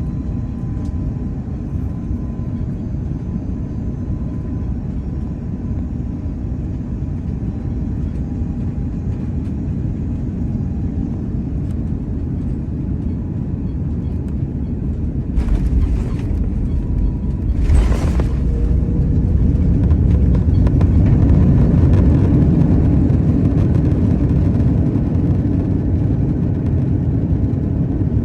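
Airbus A330-300 cabin noise on landing: a steady low rumble, then a thud about halfway through as the wheels touch down and a second knock a couple of seconds later. After that a louder roar of reverse thrust and braking builds on the rollout.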